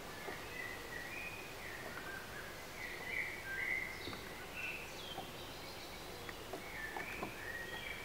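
Songbirds singing short phrases of clear notes, loudest about three seconds in, over a steady outdoor hiss, with a few faint clicks.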